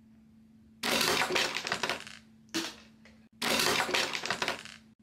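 Plastic LEGO Sonic speed sphere launcher being worked by hand, clattering in three bursts of rapid clicks.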